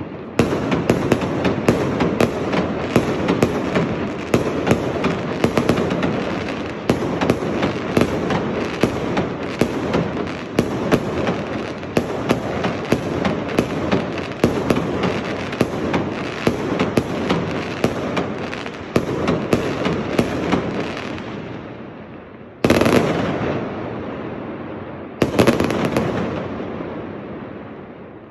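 Fireworks going off in rapid succession: a dense run of bangs and crackle that fades away after about twenty seconds. Then come two single loud bursts, each trailing off in a long, slowly fading rumble.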